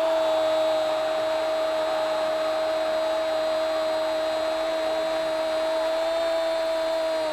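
A football commentator's long, held shout of 'gol' on one high, steady note, with the pitch falling away as the breath runs out at the very end.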